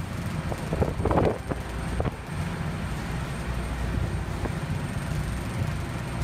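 Steady low drone of a ship under way, with wind buffeting the microphone and the wash of the wake along the hull; a louder rush of wind about a second in.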